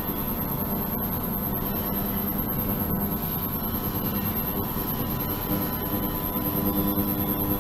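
Steady hum and hiss of an ultrasonic system running in a water-filled resin tank, with a high steady whine over it.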